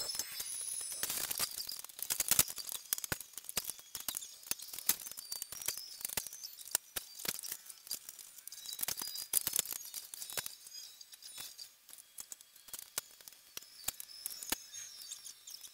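Handling noise from a person working at a Lego model on a table, fast-forwarded about twenty times so it comes out as a dense chatter of quick clicks and high squeaks. It is busier and louder in the first half.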